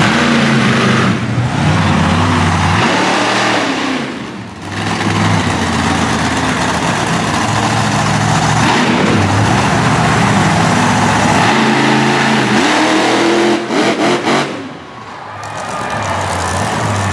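Monster truck's big-block engine running at high revs, the pitch swinging up and down as the throttle works. The revs drop away briefly twice, about four seconds in and again near the end, before climbing back.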